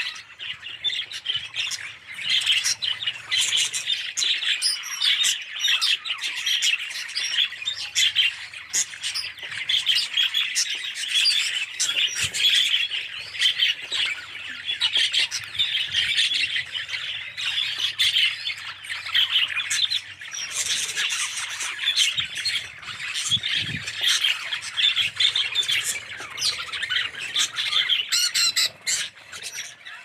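A large flock of budgerigars chattering and chirping together, a dense, unbroken mass of overlapping high, short calls.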